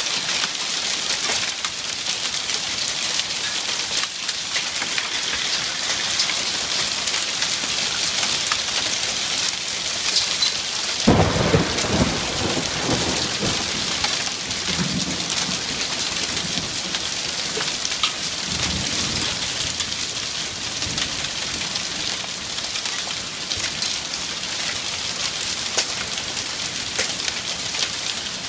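Hail and heavy rain pelting a wooden deck and yard: a steady loud hiss full of small sharp ticks. About 11 seconds in, thunder cracks and rolls into a deep rumble for a few seconds, and a second, weaker rumble of thunder follows about seven seconds later.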